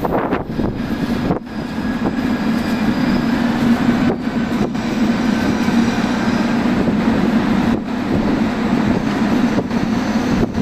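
JR Kyushu 883 series electric train standing at the platform just after arriving, giving a steady, loud hum.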